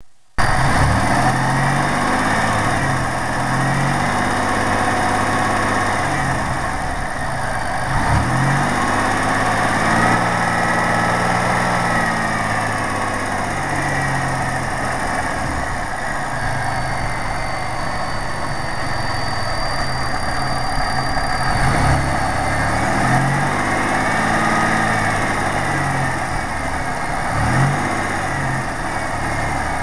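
1997 Pontiac Grand Prix GTP's supercharged 3.8-litre V6 idling, revved up and back down a few times, with a light tick that the owner suspects is a lifter.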